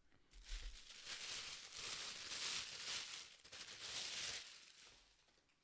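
Packaging rustling and crinkling as a camera lens is unwrapped, a dense crackly hiss that fades out about four and a half seconds in.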